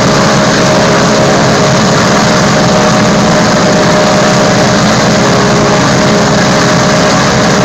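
Boeing B-29 Superfortress's Wright R-3350 radial piston engines running loud and steady, propellers turning.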